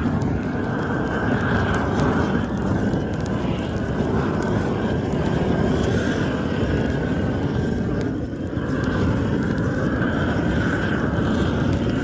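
Weed Dragon propane weed torch burning with a steady rushing flame noise as it is swept over weeds, dipping briefly about eight seconds in.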